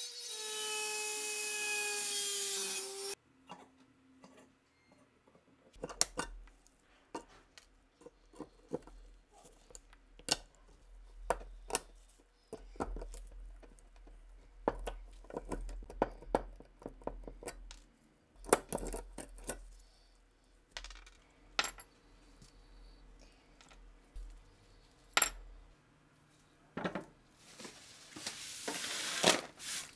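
Rotary tool with a thin cut-off wheel grinding into rusted steel: a high whine with a grinding hiss that stops abruptly about three seconds in. Then come scattered clicks, knocks and scrapes of needle-nose pliers working the rusted part. Near the end a loud rubbing hiss builds up.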